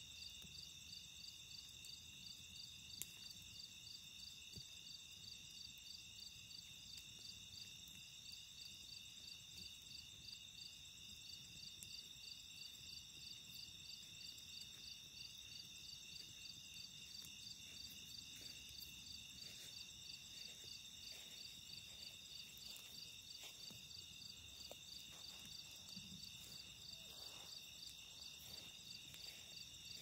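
A steady chorus of night insects, a high pulsing trill that keeps up throughout, with faint scattered crackles from a wood campfire.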